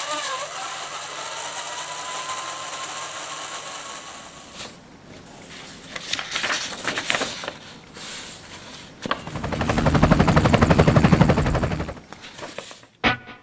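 Model helicopter's electric motor and rotor spinning with a steady whine and a faintly rising tone, then, about nine seconds in, a loud, fast, even helicopter rotor chop lasting about three seconds.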